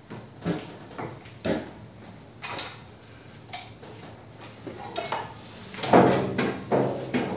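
Irregular metal clanks and knocks as a drill-press head is fitted and clamped onto a solid round steel column. The loudest clank, with a short ring, comes about six seconds in.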